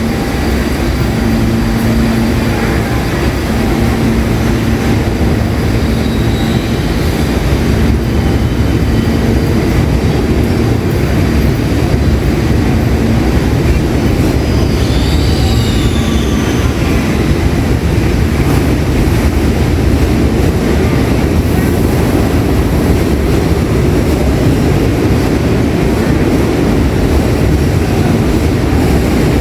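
New York City subway train running on the rails: a loud, steady rumble, with a brief high-pitched squeal about halfway through.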